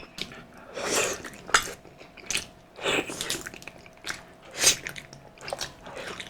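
Eating sounds at a meal: sharp clicks of utensils against a bowl or plate, mixed with a few short mouth noises such as slurping and chewing.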